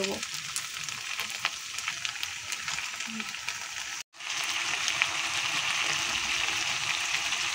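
Potato and taro pieces frying in mustard oil in a kadai, a steady sizzle with small crackles, as a ginger-garlic-tomato paste is added and stirred in with a spatula. The sound cuts out briefly about four seconds in, then the sizzle comes back a little louder.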